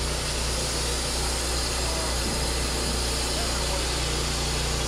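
Wood-Mizer portable band sawmill running under load, its engine droning steadily while the band blade cuts through a log and throws sawdust out the chute.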